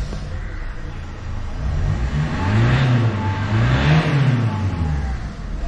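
Toyota Etios diesel engine idling, then revved up and let fall back twice in quick succession, about two and a half and four seconds in. It is run up to show the black exhaust smoke it is brought in for.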